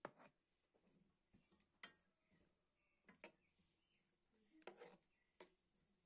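Near silence, broken by about five faint clicks of a spoon against a metal pot while stirring.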